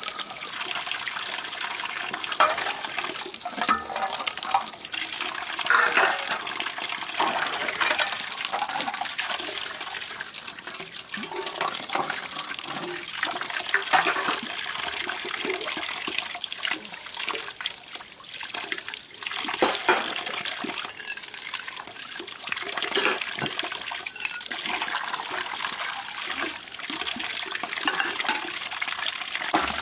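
A stream of tap water pouring steadily onto a concrete slab and into a pan as dishes are washed by hand, with the clink and knock of steel plates and bowls being handled every few seconds.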